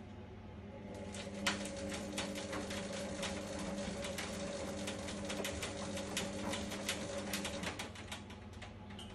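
2014 Indesit washer dryer running: a motor hum with rapid, irregular clicking and rattling starts about a second in and stops near the eighth second.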